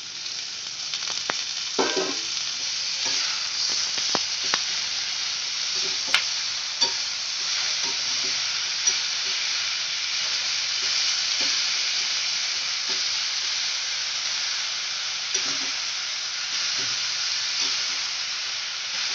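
Sliced onions, tomatoes and coriander stems sizzling as they fry in a metal kadhai, with a steady hiss. A metal spatula stirs them, knocking and scraping against the pan now and then, sharpest about six seconds in.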